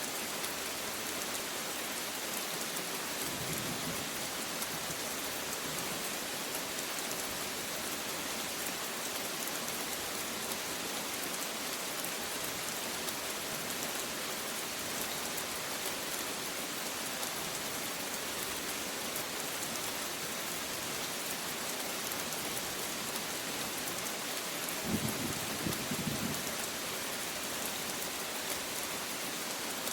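Steady rain falling, an even hiss, with a brief low rumble of thunder near the end.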